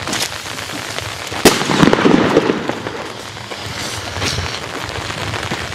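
Consumer firework going off outdoors: a sharp bang about a second and a half in, followed by about a second of dense noise, with a few lighter pops later.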